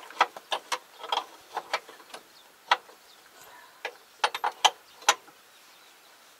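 Hand tools working on the metal of a tractor's crawler undercarriage: a dozen or so irregular sharp metallic clicks and clinks, a few in a quick run just past the middle, during work to loosen the bolts of a track that has come off.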